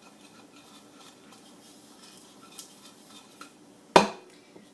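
Kitchen handling sounds: faint light clicks of dishes and utensils, then one sharp knock of a hard object on a hard surface about four seconds in.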